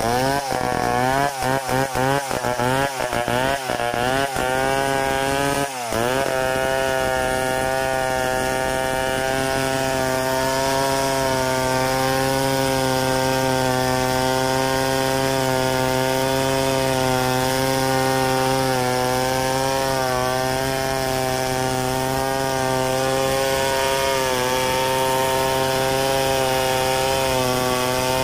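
Stihl 070 two-stroke chainsaw ripping lengthwise through a log in a freehand milling cut. For the first several seconds the engine speed wavers and dips over and over, then from about six seconds in it runs at a steady pitch under load.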